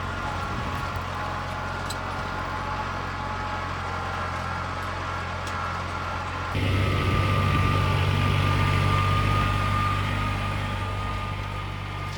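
Small tractor engine running steadily, getting louder about halfway through.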